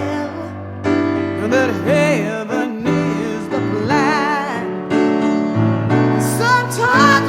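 Background music: a slow gospel-style song with piano and a singing voice holding long, wavering notes.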